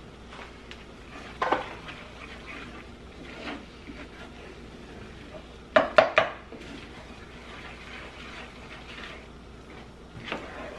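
Wooden spoon stirring in a metal skillet and knocking against its rim: a sharp clack about a second and a half in, then a quick run of three clacks about six seconds in.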